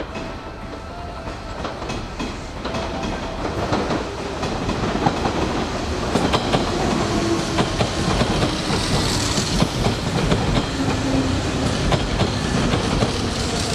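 Hanshin Railway electric train running in alongside the platform. The sound builds over the first few seconds into steady running, with wheels clicking over rail joints and a brief high squeal about nine seconds in.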